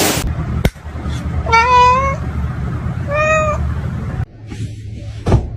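A cat meowing twice, about a second and a half in and again about three seconds in, over a low rumble that stops shortly after. Near the end there is a short sharp knock.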